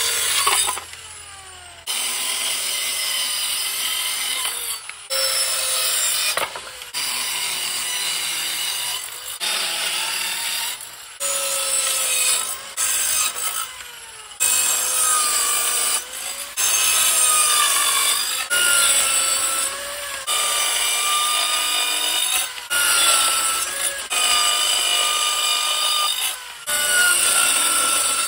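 Corded circular saw cutting plywood and boards in a string of short cuts, each starting and stopping suddenly. Its high motor whine dips slightly in pitch as the blade bites into the wood.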